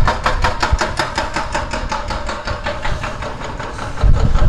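Brixx Venturi 500's 471cc liquid-cooled parallel-twin engine running at low revs, a rhythmic pulsing of about eight beats a second that slows and fades as the bike rolls to a stop. About four seconds in, a deeper, louder rumble comes in as the throttle opens to pull away.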